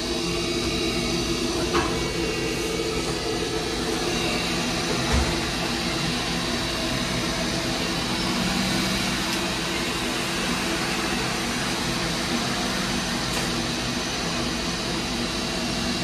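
Draft inducer motor of a 2004 Rheem gas furnace running with a steady hum at the start of a heating cycle, before ignition.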